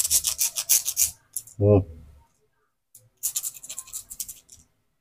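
Small plastic scoop tapped rapidly against a concrete step, about ten quick taps a second, in two runs: one in the first second and another from about three to four and a half seconds in. A man makes a brief low vocal sound between them.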